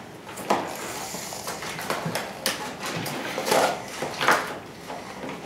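Blind-box packaging handled and opened: scattered rustles and sharp clicks, a few of them louder, at uneven intervals.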